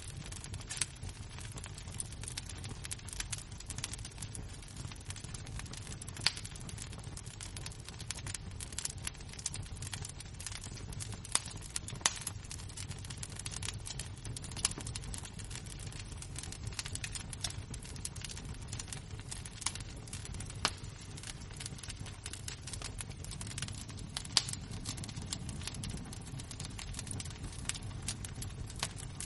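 Wood-fire embers crackling: a constant stream of small irregular pops with a few sharper snaps, over a steady low rumble.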